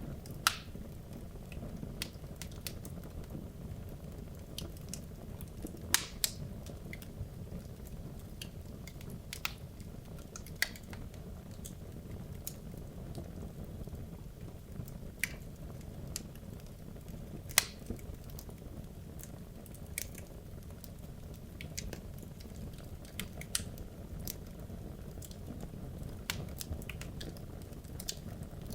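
Wood logs burning in a fireplace: a steady low roar of the flames with irregular sharp crackles and pops, a few of them much louder than the rest.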